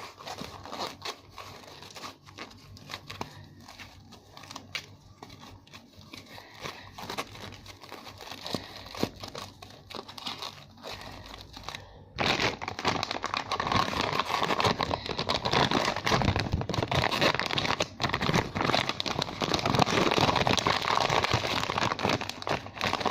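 Plastic packaging crinkling and rustling as it is handled and opened to unwrap a squishy toy: faint scattered crackles at first, then much louder, continuous crinkling from about halfway through.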